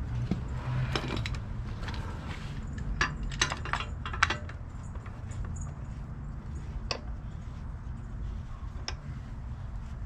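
Scattered clicks, taps and light rattles from a PVC pipe sleeve and a clamp being handled and fitted on a steel Ford 8.8 axle tube, most of them bunched about three to four seconds in, over a low steady rumble.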